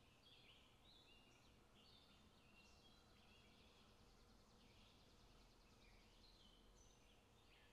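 Near silence, with faint, repeated bird-like chirping throughout.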